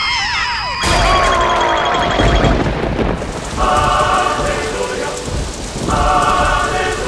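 Cartoon characters screaming, cut off about a second in by a crash of thunder, then heavy rain pouring down steadily. Two short vocal cries sound over the rain.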